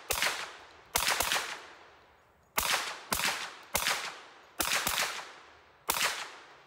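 Hi-Point carbine firing about nine semi-automatic shots at an uneven pace, some in quick pairs, each shot followed by a short echo fading away.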